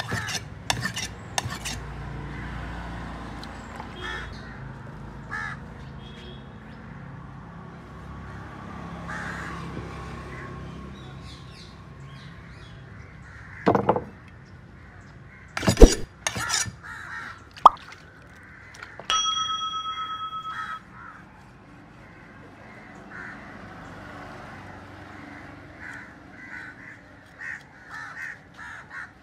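Crows cawing now and then over outdoor background noise, with several sharp knocks near the middle and a steady pitched tone lasting about two seconds a little later.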